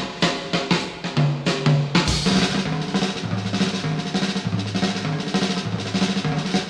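Instrumental music with busy drums (snare and kick) over a bass line that steps between notes.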